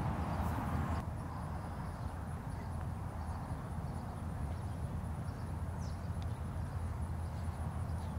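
Steady low rumble of wind buffeting the microphone, with a couple of faint clicks near the start and about six seconds in.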